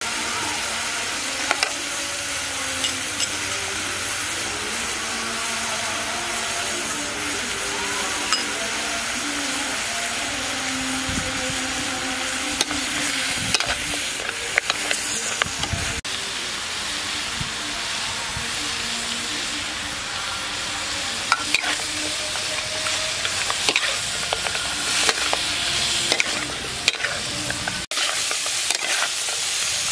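Pork rib pieces sizzling in a wok with a steady frying hiss, stirred with a metal spatula that scrapes and clicks against the pan again and again.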